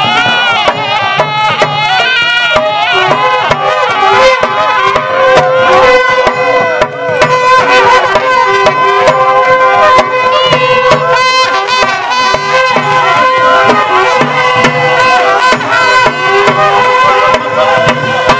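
Live Kota festival music: a wind instrument plays a melody that wavers and bends in pitch over long held notes, with drums beating a steady rhythm beneath it. Long curved horns and a frame drum are among the instruments.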